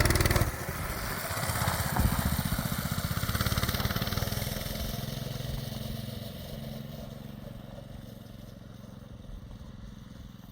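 Chrysler 440 big-block V8 in a 1976 Dodge half-ton pickup running with an even beat, growing steadily fainter. The engine has a freshly repaired low-compression cylinder and runs smoothly.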